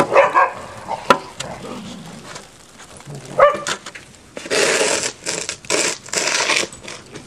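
Dogs playing in snow: a single short bark about three and a half seconds in, then a run of loud crunching, crackling noise close to the microphone. There are a couple of sharp knocks in the first second or so.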